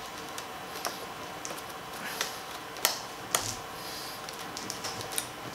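Fuel hose being worked off its quick-connect fitting with a fuel hose removal tool: scattered light clicks and taps of the plastic and metal parts under gloved hands, the sharpest two about halfway through.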